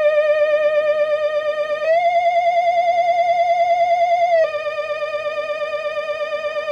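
Retro spooky Halloween sound-effect loop: a wavering, theremin-like electronic tone with a fast vibrato, sliding between two notes. It starts on the lower note, rises about two seconds in and drops back about four and a half seconds in.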